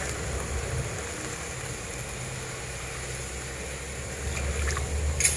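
Wok of chicken feet on the stove just after water has been poured in: a steady low rumble with a faint hiss, and a sharp clink about five seconds in.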